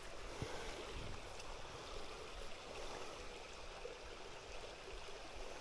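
Water of a small, shallow creek running steadily over a rocky bed, a faint even hiss.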